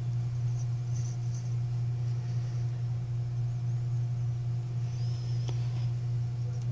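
A steady low hum, with one faint click about five and a half seconds in.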